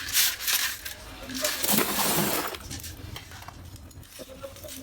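Hard chunks of roasted multani mitti (Fuller's earth clay) crunching and snapping: a few sharp cracks right at the start, a longer crunch about two seconds in, then only a few small clicks.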